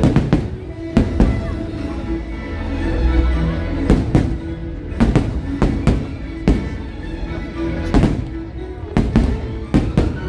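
Fireworks shells bursting overhead in a series of sharp bangs, often in quick pairs or clusters, over a fireworks show's music soundtrack.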